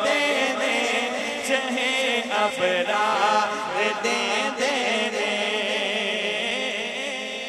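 Unaccompanied devotional Punjabi naat singing by a male voice through a microphone and sound system, in long wavering held lines, starting to fade out near the end.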